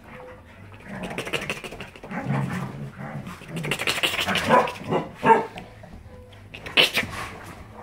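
Dogs barking and growling in play, low and rough at first, louder calls around the middle, and a short sharp burst near the end.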